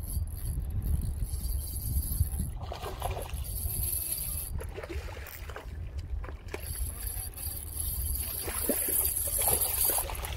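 Steady low wind rumble on the microphone, with scattered water splashing from a hooked trout being played at the bank, the fish thrashing at the surface near the end.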